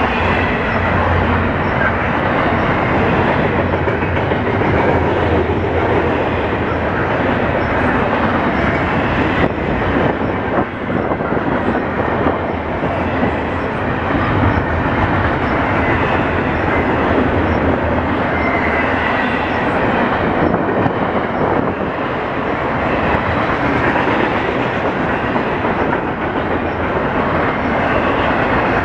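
Double-stack intermodal container cars of a freight train passing close by at speed: a loud, steady noise of steel wheels running on the rails, with the clatter of the cars going by.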